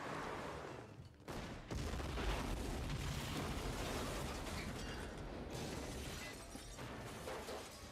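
Movie sound effect of a car packed with C4 exploding: a sudden blast about a second and a half in, then a long low rumble with crackling and clattering debris that slowly dies down.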